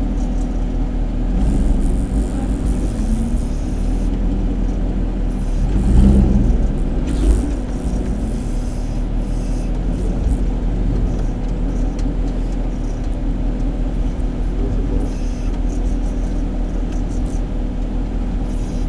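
Off-road 4x4's engine running at low speed over a rough trail, a steady low rumble. It swells louder about six seconds in, and a sharp knock follows about a second later as the vehicle bumps over the rocks.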